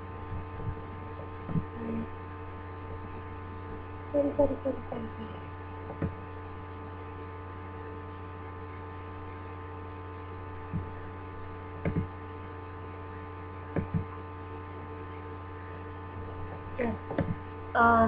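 Steady electrical hum with several steady tones, picked up by the recording, with a few soft ticks and knocks here and there.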